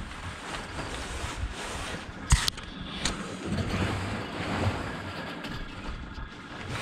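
Wind buffeting the microphone over water lapping at a small sailboat's hull, with one sharp knock a little over two seconds in and a fainter click about a second later.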